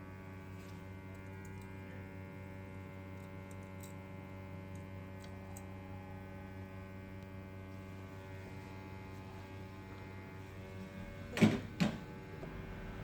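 Hot air rework station running with a steady hum while heating solder on a phone circuit board, with two brief knocks about eleven and a half seconds in.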